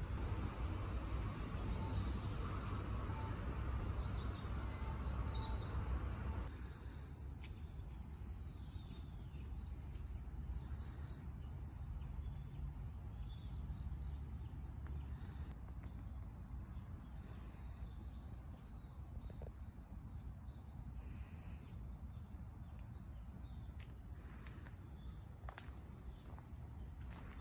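Outdoor park ambience: a steady low rumble with scattered short, high bird chirps. The rumble drops noticeably about six seconds in.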